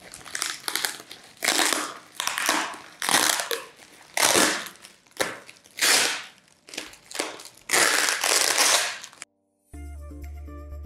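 Cardboard and plastic packing material crunching and rustling in repeated bursts as a tightly packed soundbar box is unpacked. Near the end the sound cuts off to a moment of silence, and background music begins.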